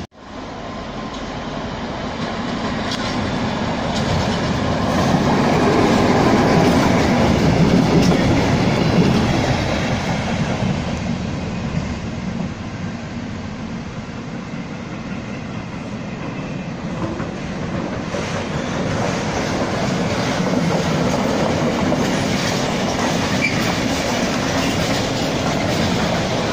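Container freight train rolling past, its wagon wheels clattering steadily over the rails; the noise swells to its loudest about a quarter of the way in, eases, then builds again near the end.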